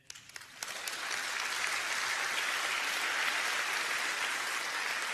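Audience applauding: a few scattered claps that build within about a second into steady applause.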